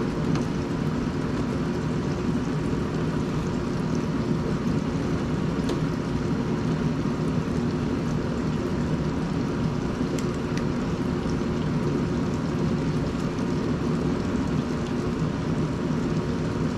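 Deep fryer with fish fillets frying in the oil: a steady low rumble and hiss of bubbling oil, with a few faint clicks.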